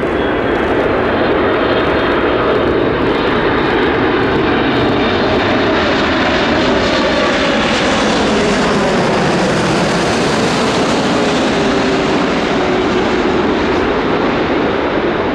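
Boeing 747-8F freighter's four GEnx turbofans on final approach, gear down, passing low overhead: a steady, loud jet rumble and whine. The engine tone falls in pitch as the aircraft goes over, about halfway through.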